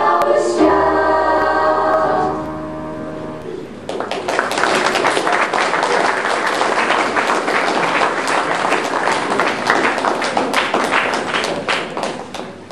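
A school choir holds and releases the final chord of a song, then, about four seconds in, the audience breaks into steady applause that lasts to the end.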